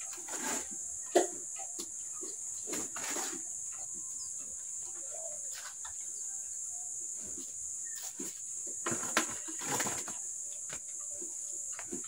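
Scraping and knocking of wet cement mortar being scooped by hand into a bucket, with louder scrapes about a second in and again around nine to ten seconds. Chickens cluck in the background over a steady high-pitched hiss.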